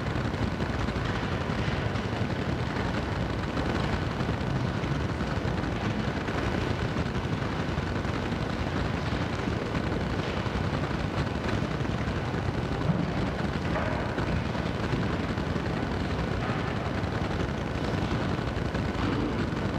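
Steady low rumbling room noise with no distinct events apart from one brief knock about thirteen seconds in.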